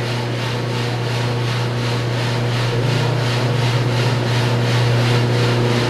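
Drum coffee roaster running mid-roast: a steady motor hum under the rustle of coffee beans tumbling in the rotating drum, pulsing evenly a few times a second.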